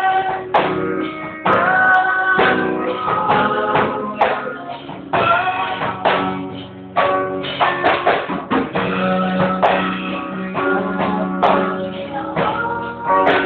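A man singing into a microphone while playing an electric guitar. It is recorded on a Nokia 3110 phone, so the sound is dull, with the highs cut off.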